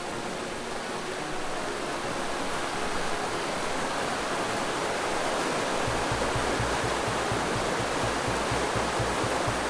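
Mountain creek rushing and splashing over rocks in a steady loud roar of white water. A low regular pulse comes in underneath about six seconds in.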